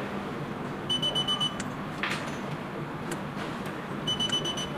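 Daytech restaurant pager's buzzer giving two quick runs of rapid high-pitched beeps, about three seconds apart, as its red power button is long-pressed to switch it on or off. A soft click comes between them.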